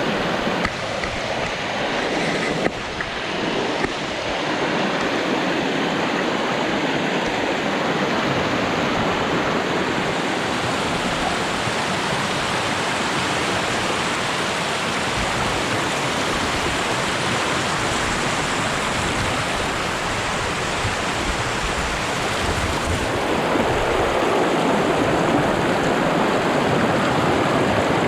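Steady rush of flowing water, like a mountain stream or waterfall, growing slightly louder near the end.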